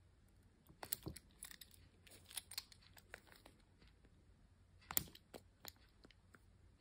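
Small, faint clicks and clinks of a stainless-steel snap hook on a phone lanyard strap being handled and clipped onto a phone case's attachment loop. There is a cluster of clicks about a second in and the sharpest click about five seconds in.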